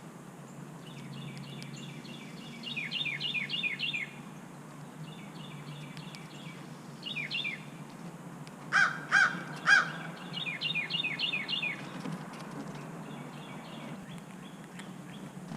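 Carolina wren singing its rolling song: rapid runs of repeated down-slurred notes, several phrases in a row. About two thirds of the way through, a crow caws three times, louder than the song.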